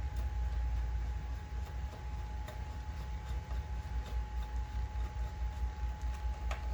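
A small screw being tightened into a CPU heatsink's mounting bracket: a few faint, scattered ticks over a steady low hum and a faint steady whine.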